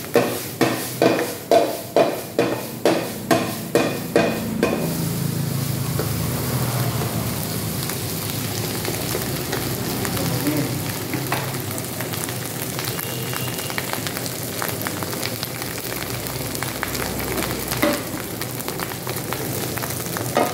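Egg fried rice frying in a pan on a gas burner, stirred with a metal spatula: the spatula strikes the pan about twice a second for the first four seconds or so, then the rice sizzles steadily.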